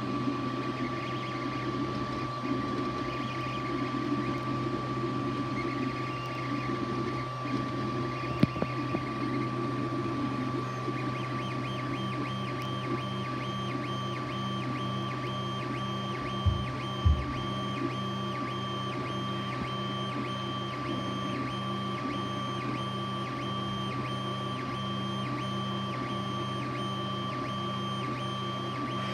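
3D printer running mid-print: a steady fan hum with a constant high tone, and stepper motors driving the print head. The motor sound shifts irregularly at first, then settles into an even, repeating pattern about a third of the way in. A few short knocks come around the middle.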